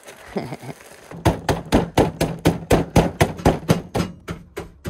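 Pretzels being crushed to crumbs inside a doubled zip-top plastic bag: a fast, even run of sharp knocks, about five a second, starting about a second in.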